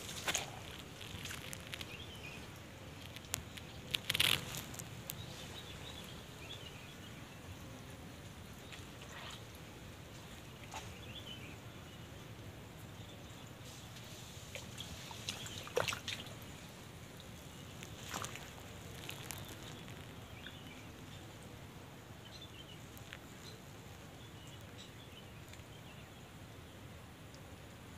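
Open-air ambience over a shallow lotus swamp with faint scattered chirps and a handful of brief sharp clicks or knocks, the loudest about four seconds and sixteen seconds in.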